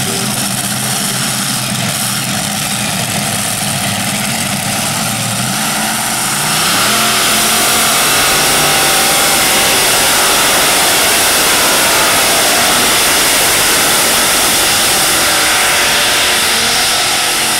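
Modified pulling tractor with a row of several engines running at low revs at the start line. About six seconds in it revs up to full throttle and keeps running flat out as it hauls the weight-transfer sled down the track. It eases off near the end.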